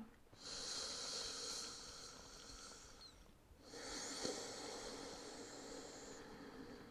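Slow, deep breathing through the nose and mouth: two long, faint, airy breaths, the second starting after a short pause.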